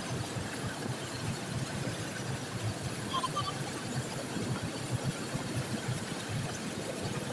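Steady low rumble of an idling diesel engine, most likely the locomotive of the standing goods train.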